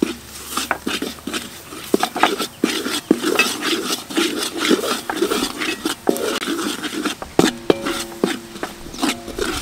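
Metal ladle scraping and clinking against an aluminium wok as it stirs a frying garlic paste, in repeated strokes at an uneven pace.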